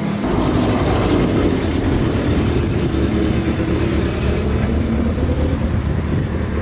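Motor vehicle driving: a steady, loud rumble of engine and road noise.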